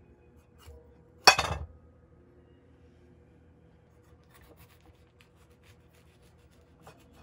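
Kitchen knife cutting through a papaya melon on a glass plate: one loud, short crunch about a second in as the blade breaks through the rind, then a few faint clicks of the knife on the melon and plate.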